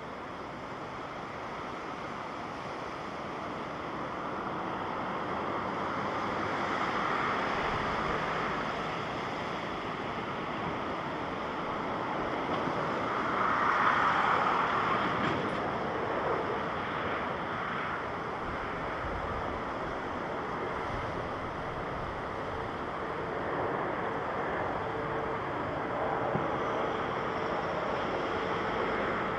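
Jet airliner engines, a Japan Airlines Boeing 737-800, passing close by: the rush builds over several seconds, is loudest about halfway through, then eases to a steady lower roar with a faint hum near the end. Wind on the microphone blends in.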